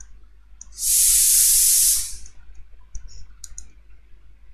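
A loud, steady hiss lasting about a second, starting a little under a second in. Faint scattered clicks of a pen stylus on a drawing tablet come before and after it as a heading is written.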